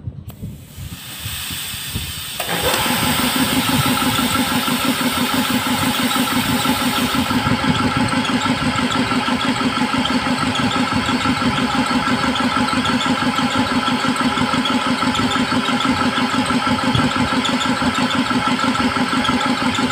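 Compressed air hissing out of an air compressor tank, then about two seconds in the pressure switch cuts in and the compressor's motor and pump start and run steadily, refilling the tank. The quick cut-in after only a little air is let out shows the newly adjusted pressure switch.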